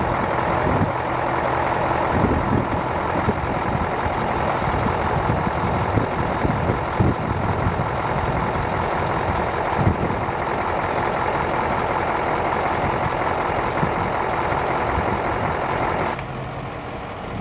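Heavy truck-mounted crane's diesel engine running steadily, with a few short knocks over it; the sound changes abruptly and turns quieter near the end.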